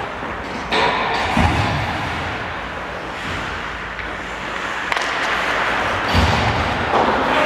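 Ice hockey rink ambience during a faceoff and play: a steady echoing hall hiss with sharp clacks of sticks and puck, and two dull thuds, one about a second and a half in and one about six seconds in.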